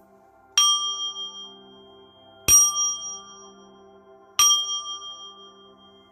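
A small metal bell or chime struck three times, about two seconds apart, each strike ringing out and fading. Soft background music with steady tones continues underneath.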